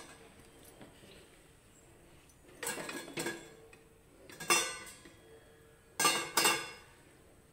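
Metal kitchen vessels and utensils knocking and clinking together, about five short clinks with a brief ring, in three groups spread over the few seconds.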